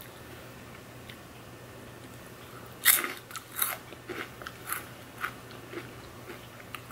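A person biting and chewing a crisp dried okra snack. About three seconds in there is one loud crunch, then a run of softer crunches, about two a second, that fade as it is chewed.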